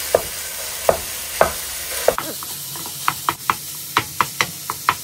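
Ground beef sizzling in an oiled nonstick frying pan while a wooden spatula chops and breaks it up, knocking and scraping against the pan. The knocks come one at a time at first, then come thick and fast from about three seconds in.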